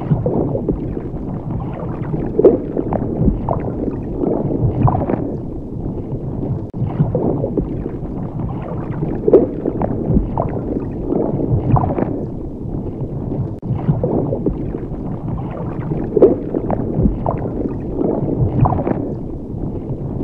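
Water bubbling and gurgling: a steady low rumble with short bubbly blips every second or so.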